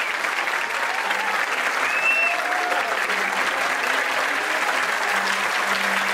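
An audience applauding steadily, a dense continuous clapping from a seated crowd.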